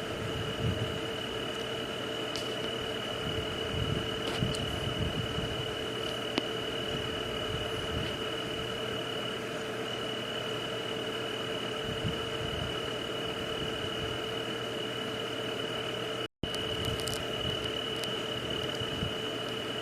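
Steady white-noise night ambience: an even hiss carrying a constant high tone and a lower steady hum. It cuts out completely for an instant about sixteen seconds in.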